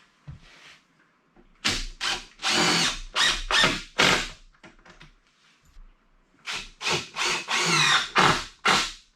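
Power drill driving two screws into the wooden legs of a lathe stand. Each screw takes a few short pulls of the trigger and then a longer run, the first starting about a second and a half in, the second about six and a half seconds in.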